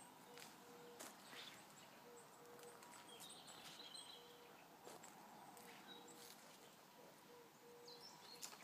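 Very faint outdoor ambience: scattered light crackles of footsteps on dry leaves and soil, with a distant bird chirping about three seconds in.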